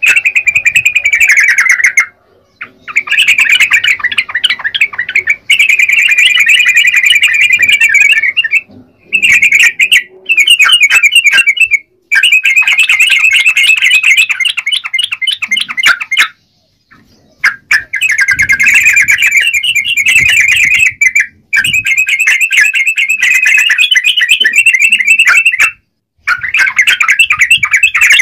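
Yellow-vented bulbul singing loud, rapid, bubbly chattering phrases, each a few seconds long with short breaks between them.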